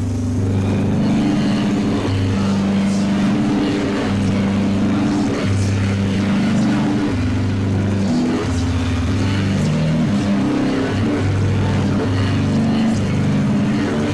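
Experimental noise music: a distorted, heavily processed guitar sample holds low sustained notes that shift every second or so, over a constant hissy layer.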